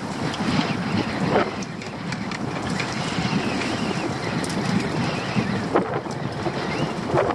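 Wind buffeting the microphone over choppy sea, with water slapping around a small open boat, and a few knocks and rattles as a crab pot is handled.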